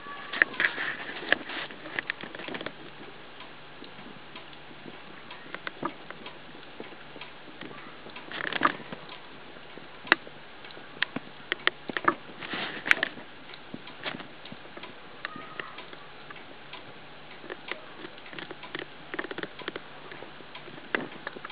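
Irregular light clicks and short rustling taps over a faint steady hum, with no even rhythm.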